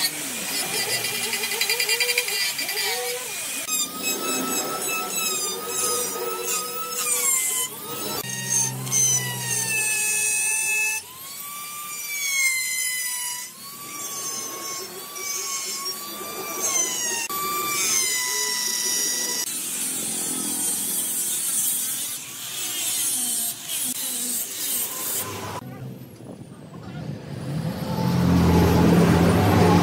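Electric power-carving tools on hardwood, an angle grinder with an abrasive disc and a die grinder, whining at high speed, the pitch dipping and recovering as they bite into the wood, with several abrupt breaks. Near the end a lower, louder machine sound comes in.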